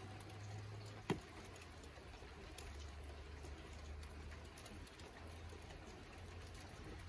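Faint background noise with a steady low rumble, and one sharp click about a second in.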